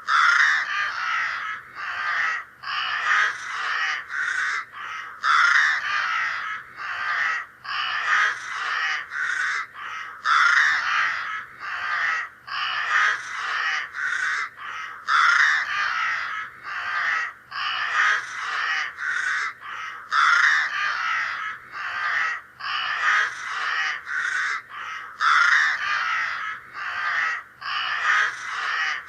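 Crows cawing over and over, harsh rasping calls in quick runs of several a second. The same run of calls comes round again about every five seconds, as in a looped recording.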